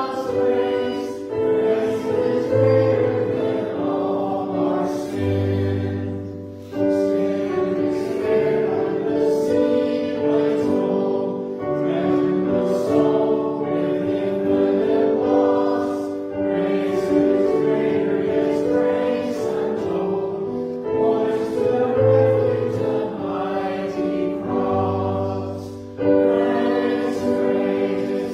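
A choir singing a hymn with accompaniment, in long held phrases with short breaks between them.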